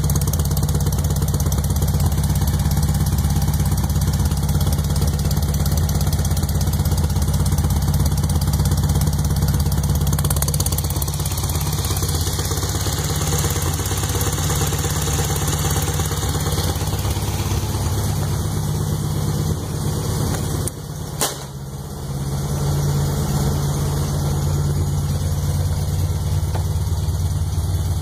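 Freshly rebuilt 1641 cc engine running steadily at idle. About three quarters of the way through, the running sags for a moment and there is one sharp pop; the owner is checking it for a pop and knock noise.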